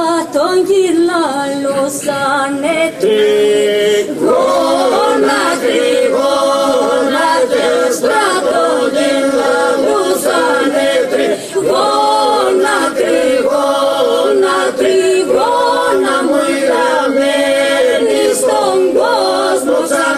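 Epirote polyphonic song sung unaccompanied by a small mixed group of men and a woman: a steady held drone under a wavering, ornamented lead voice, with a brief break between phrases a few seconds in.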